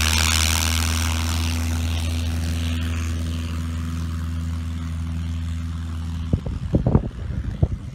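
Tow plane's piston engine and propeller running steadily at an even pitch, with a high hiss that fades over the first few seconds. About six seconds in the engine sound stops abruptly, and irregular low gusts like wind on the microphone follow.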